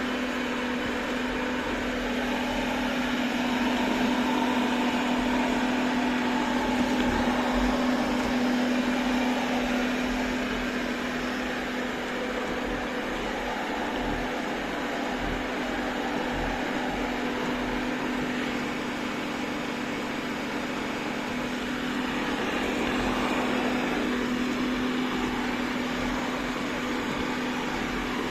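Robot vacuum cleaner running: a steady motor and suction hum with a constant low tone, swelling slightly a few seconds in and again near the end.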